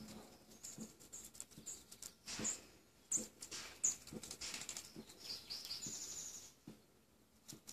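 Small burrowing rodent gnawing sunflower seeds: quick, irregular cracking and crunching of the husks. Short high bird chirps sound in the background, with a fast high trill about six seconds in.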